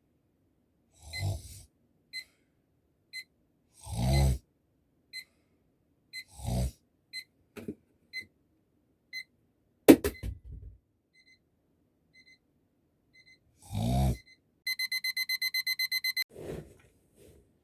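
Alarm clock beeping softly about once a second while a person snores in slow, heavy breaths. A sharp knock comes just before halfway, and near the end the alarm switches to rapid, louder beeping, about nine beeps a second, for a second and a half.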